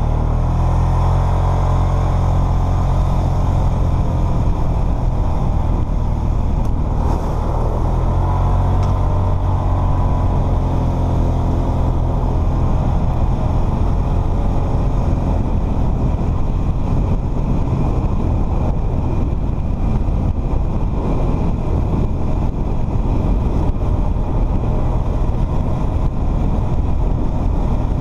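Polaris Sportsman 500 ATV's single-cylinder four-stroke engine running under way, heard close from the rider's seat; its pitch rises and falls a little over the first ten seconds, then holds steady.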